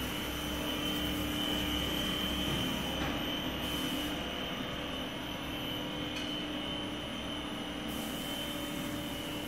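PVC marble sheet extrusion line running: a steady machine drone from the extruder's big electric drive motor and the rest of the line, with a constant high tone over a low hum.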